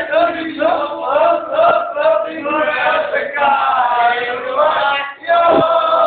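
Teenage boys chanting and singing loudly without instruments, a sing-song chant that breaks off briefly about five seconds in.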